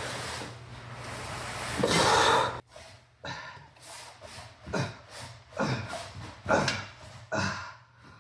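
A man breathing hard, with short grunts of effort about once a second after a rushing noise that cuts off suddenly about two and a half seconds in.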